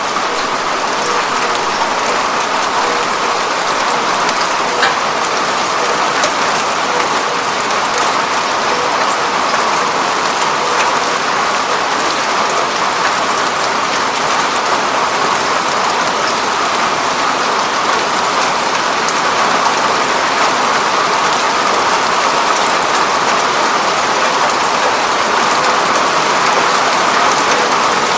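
Steady rain falling on a window pane, a dense even patter with scattered sharper drop ticks.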